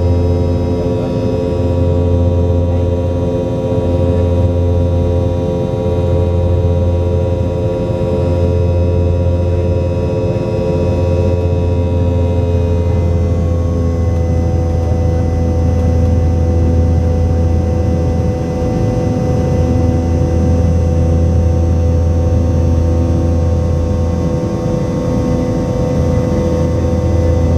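Cabin noise of a Boeing 717 climbing after takeoff: the steady drone and whine of its rear-mounted Rolls-Royce BR715 turbofan engines, heard as several steady tones over a deep rumble. About halfway through, some of the higher tones shift and fade.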